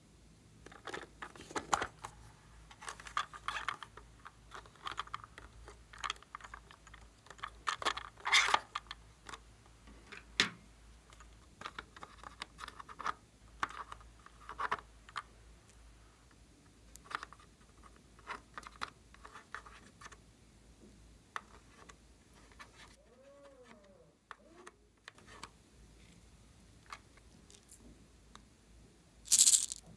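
Plastic toy makeup cases being handled and opened: scattered clicks and taps, with light scraping of lipstick by a plastic spatula. A louder, half-second rustle or clatter comes near the end.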